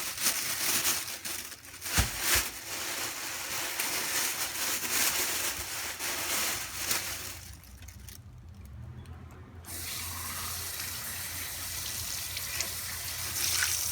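Kitchen tap running into a sink while fish is rinsed under it, with a couple of knocks about two seconds in. The flow stops for about two seconds past the middle, then runs again.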